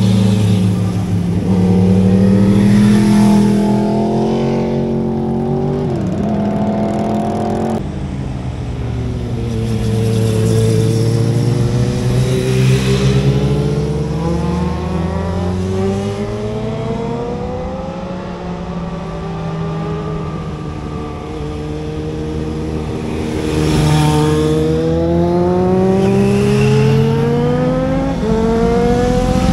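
Several motorcycles riding through a hairpin bend one after another. Their engines rise in pitch as they accelerate out of the corner, with gear changes, and fall away as they pass.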